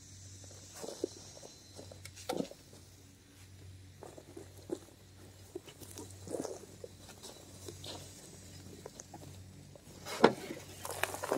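Steel shovel digging into a pile of compost: intermittent soft scrapes and crunches as the blade goes in and lifts, with a sharp knock about ten seconds in.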